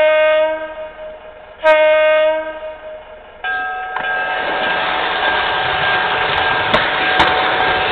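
Model Pioneer Zephyr train's sound system giving two short horn blasts, each fading within a second. From about three and a half seconds in, its diesel engine sound starts up and runs on steadily, louder, as the train departs.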